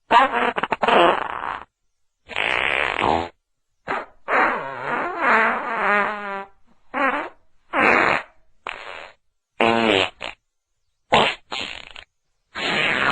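A string of about a dozen separate fart sounds of different kinds, with dead silence between them. Some are short sputtering rasps; others are pitched and waver up and down, the longest lasting about two seconds near the middle.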